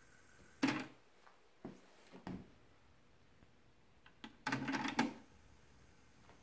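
Pioneer CT-W616DR cassette deck's buttons and logic-controlled tape transport clicking and clunking as it is operated: a sharp clunk under a second in, a couple of lighter clicks, then a rapid cluster of clicks around four and a half seconds in as the mechanism engages.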